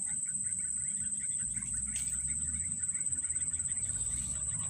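Insects droning steadily at one high pitch, with a faint rapid ticking above a low rumble.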